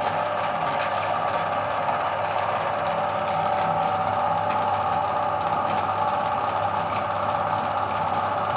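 Meat grinder running steadily, its motor and gears making an even mechanical whir with faint crackling as it grinds chocolate.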